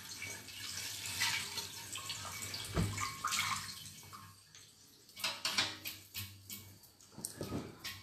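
Water running from a sink's spray tap over a shaving brush being rinsed, stopping about halfway through. Then a run of quick, sharp flicks as the wet brush is shaken out.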